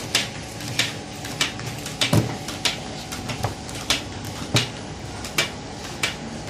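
Carton feeding and printing line running: sharp, regular clacks about every two-thirds of a second as pharmaceutical cartons are fed past a continuous inkjet coder, over a steady machine hum.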